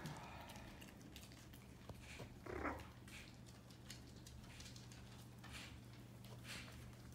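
Papillon puppies playing: faint ticking of small claws on a laminate floor, with one brief puppy squeak about two and a half seconds in.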